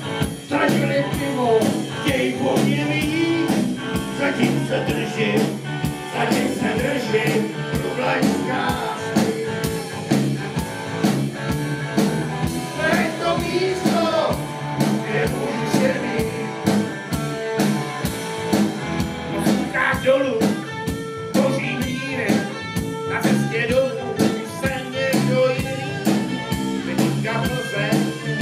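Men's choir singing a song live with band accompaniment over a steady beat.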